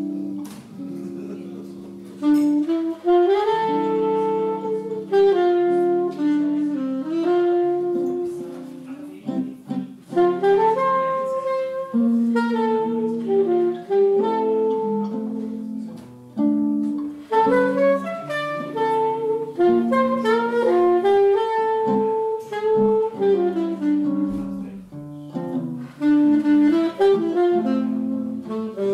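Alto saxophone playing a jazz melody of held and gliding notes, over chords from a nylon-string classical guitar.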